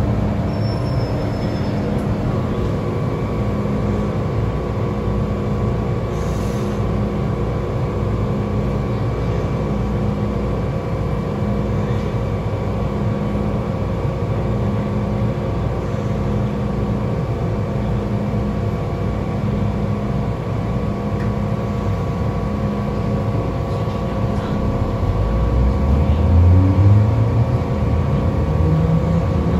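Interior running noise of an MTR M-train electric metro car: a steady rumble with several hum tones and one tone pulsing on and off about once a second. About 25 seconds in, the traction motors' whine starts and climbs steadily in pitch as the train picks up speed.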